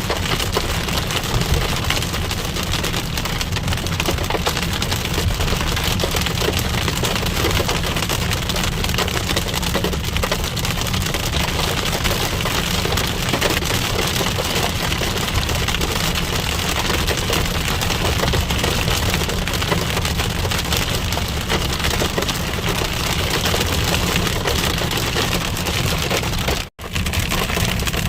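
Hail and heavy rain pelting a car in a dense, steady patter of fine hits, over a low rumble from the moving car. The sound cuts out for an instant near the end.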